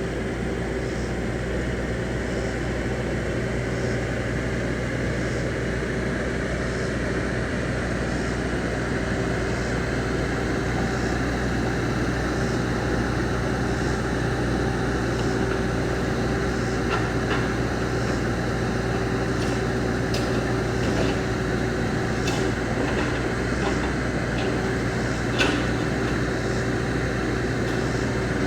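Bobcat E26 compact excavator's diesel engine running steadily, with a few light clicks and knocks about two-thirds of the way through.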